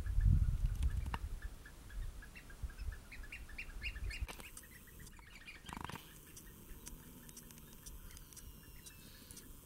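Eurasian oystercatchers calling in a quick series of short, repeated piping notes, with a low rumble on the microphone in the first second. After about four seconds the calls drop away to faint, scattered ticks.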